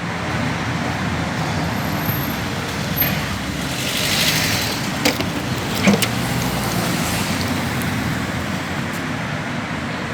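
Steady vehicle or road-traffic noise, with two short sharp knocks about five and six seconds in.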